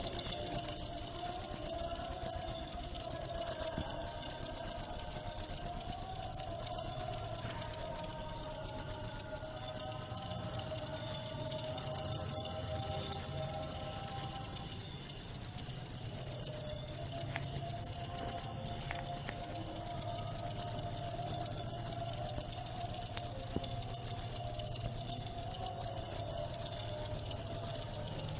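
Cricket chirping in a loud, fast, continuous high-pitched trill, broken by a few very brief pauses.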